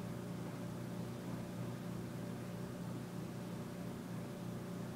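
A steady low hum with a faint even hiss, no changes or sudden sounds: background hum from running electronics.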